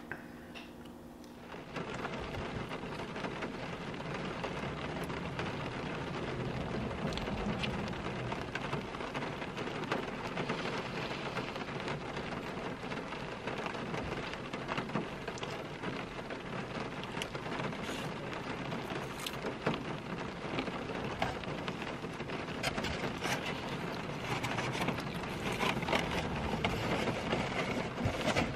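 Steady rain falling on a car's roof and windows, heard from inside the car, with many small scattered drop hits. It starts suddenly about two seconds in.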